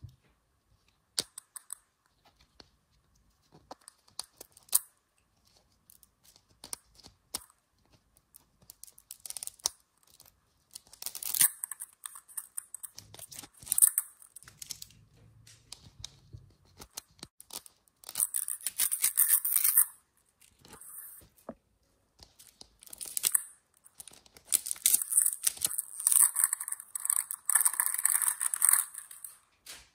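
Wrapping being peeled and torn off a Zuru 5 Surprise capsule ball in repeated bursts of ripping and crinkling, after a few scattered light clicks and taps from handling the ball.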